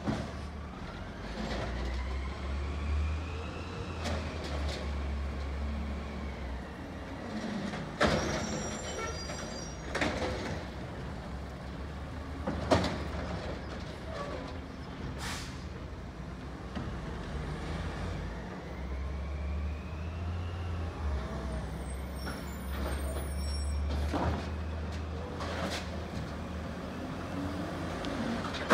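Garbage truck working on a street: its engine revs up twice for long spells, each time with a whine that rises and then falls, and between the two come several sharp bangs and short bursts of air.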